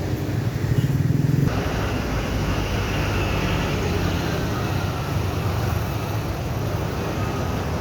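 Road traffic: car and motorcycle engines running steadily.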